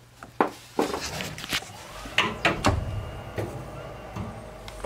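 A series of irregular knocks and clicks, about ten in all, the loudest about half a second in, over a low steady hum.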